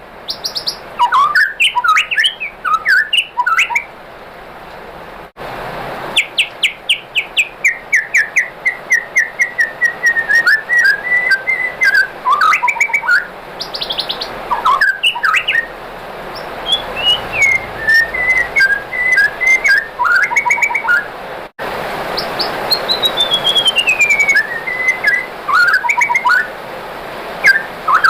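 White-rumped shama (murai batu) singing: rapid, varied phrases of clear whistles and chattering notes, several running down in pitch, with three abrupt breaks where the recording is spliced.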